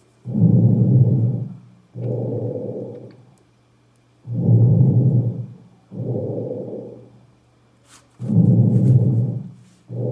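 Lung sounds heard through a stethoscope over the front of the chest: slightly enhanced vesicular breathing. There are three breaths about four seconds apart, each a louder in-breath followed by a softer out-breath, over a faint steady hum.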